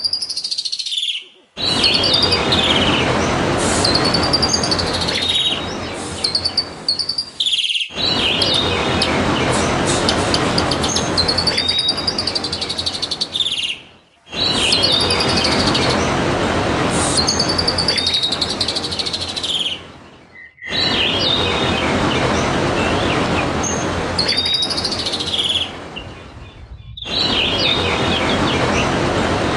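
Trickling, babbling water with white-eye (pleci) song over it: repeated high arching whistled phrases. The water and song cut out briefly about every six seconds, where the looped recording restarts.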